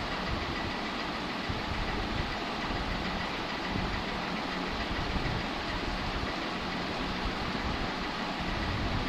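Steady rushing noise with a faint high whine, even in level throughout.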